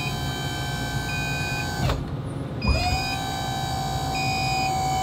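Hydraulic leveling-jack pump motor on a Class A motorhome running with a steady whine. About two seconds in it cuts out, its pitch falling away, then starts again about half a second later with its pitch rising back: the jacks are being powered down. A short high beep repeats about every second and a half.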